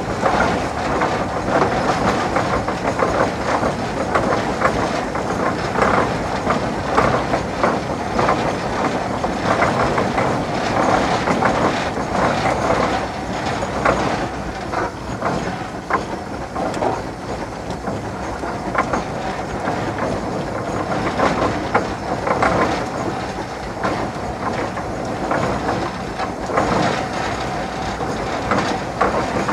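Steam traction engine running as it drives slowly forward: a steady mechanical clatter of its gearing and steel lugged wheels, with many irregular knocks.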